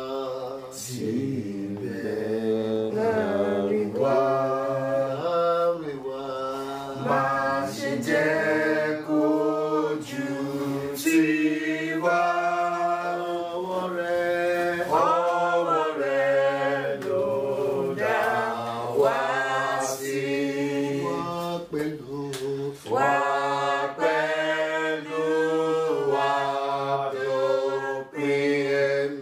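Unaccompanied voices singing a chant-like church hymn, with held notes that glide from one pitch to the next.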